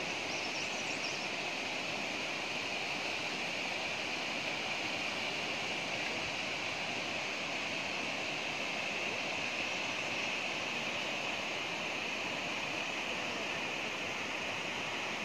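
River rapids rushing: a steady, even rush of water.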